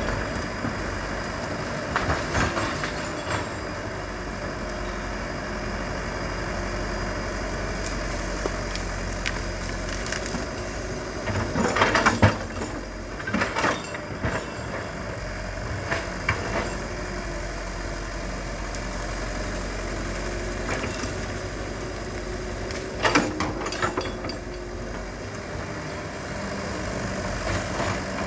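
Excavator diesel engine running steadily, with intermittent sharp cracks and crunches of breaking wood as trees are pushed over. The loudest cracks come about twelve seconds in, with another cluster near twenty-three seconds.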